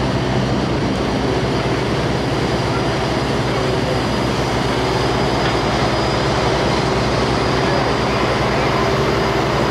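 Car ferry's engines running steadily while under way: a low, rapid throb and hum beneath a constant rushing noise.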